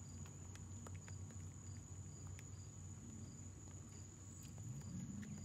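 Faint outdoor insect chorus: a steady high buzzing drone with short chirps repeating about twice a second, over a low steady hum.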